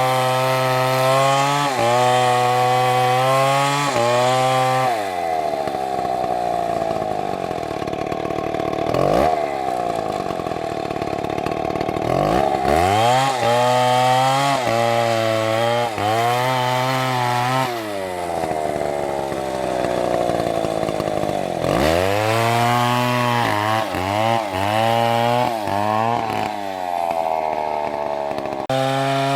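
STIHL two-stroke chainsaw running hard: the engine pitch sags and wavers for several seconds about five seconds in, climbs back to full revs, then gives a few quick throttle blips before rising to full speed again near the end.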